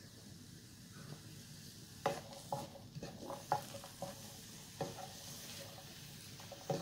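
Chopped onion and garlic frying gently in oil in a nonstick pan, a faint steady sizzle, with a wooden spatula stirring them and knocking and scraping against the pan several times from about two seconds in.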